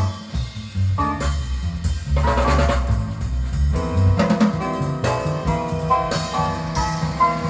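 Music with drum kit and bass, with a melody of clear keyboard-like notes coming in about four seconds in.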